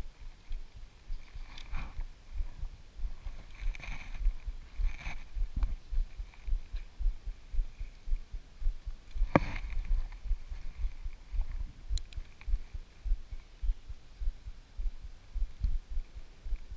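Low, irregular thumping on the microphone of a body-worn camera, with a few faint clicks and a sharper click about nine seconds in, as a spinning reel is cranked to retrieve a lure.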